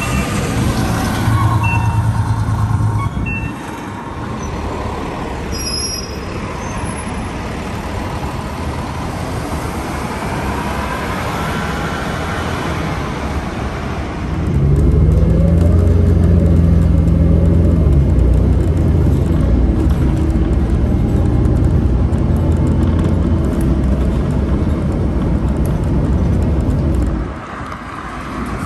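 Street traffic with buses going by. About halfway through, the sound changes to the steady low engine drone of a city transit bus, heard from inside while riding, and it stops shortly before the end.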